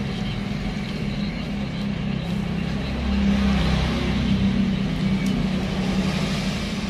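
A steady low mechanical hum, swelling slightly about three seconds in.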